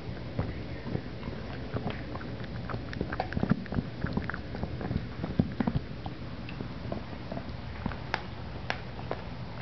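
Puppy chewing and gnawing on a chew toy close to the microphone: irregular clicks and crunches, busiest around the middle. A few sharper single clicks come near the end.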